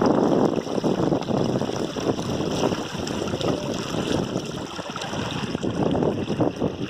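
River water running steadily, a dense rush of flowing water that eases a little in the middle and swells again near the end.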